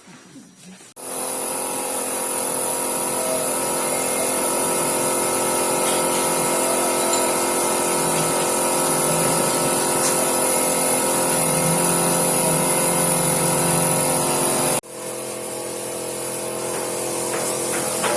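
Onion sorting machine running: a steady mechanical hum with a high whine, starting suddenly about a second in. It breaks off abruptly a few seconds before the end and comes back a little quieter.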